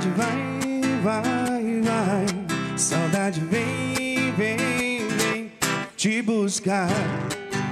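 Live solo performance: an acoustic guitar strummed steadily while a man's voice sings along, the melody bending and wavering over the chords.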